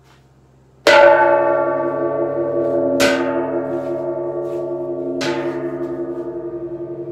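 Homemade gong made from an old propane tank, struck three times with a rubber mallet about two seconds apart. Each strike rings with many steady overlapping tones that hold and slowly fade, with a slow wavering beat in the ring.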